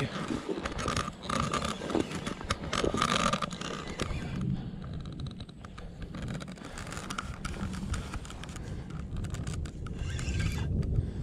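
Rustling, scraping and irregular knocking from clothing and fishing gear handled close to a body-worn camera, over a low steady rumble.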